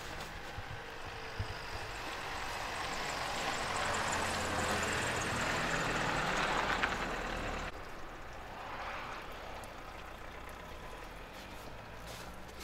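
A motor vehicle passing, its engine and tyre noise growing louder over several seconds and then dropping off sharply about eight seconds in, over a steady low engine hum.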